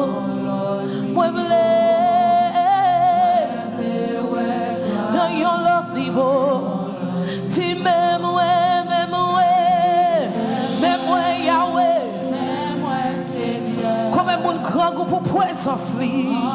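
Gospel worship music: singers holding long, wavering notes with a praise team over a steady band accompaniment.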